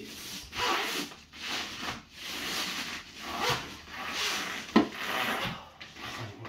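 Large latched shipping crate's outer shell scraping and rubbing against its base as it is worked up and off in a series of heaves, with one sharp knock a little before five seconds in.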